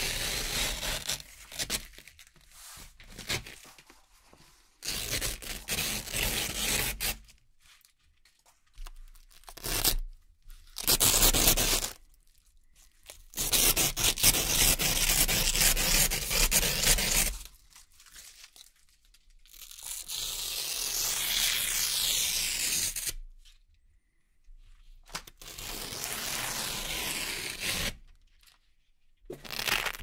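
White Velcro (hook-and-loop) strips being peeled off a red Velcro backing: a series of separate crackling rips, each one to four seconds long, with short silent pauses between pulls.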